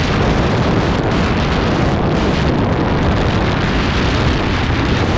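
Steady wind rushing over the microphone of a motorcycle riding on the road, with the bike's running noise buried under it.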